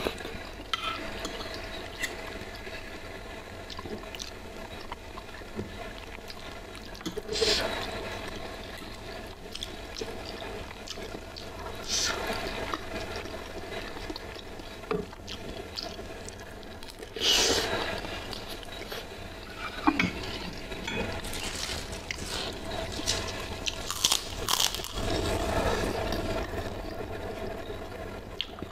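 Close-miked eating of saucy instant noodles: wet chewing and mouth sounds, with spoon and fork clinking and scraping on the plate. A few louder sharp sounds stand out now and then.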